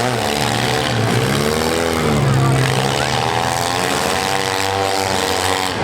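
Small-car engines revving up and down as the cars drive and push against each other in a mini demolition derby heat, their pitch rising and falling over a second or two, over a dense mechanical din.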